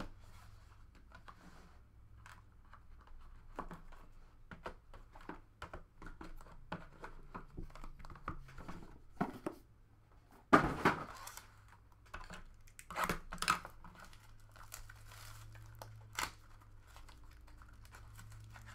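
Plastic wrapping on a trading card box being crinkled and torn open by hand: scattered rustles and clicks, with louder ripping crackles about ten and a half seconds in and again around thirteen seconds.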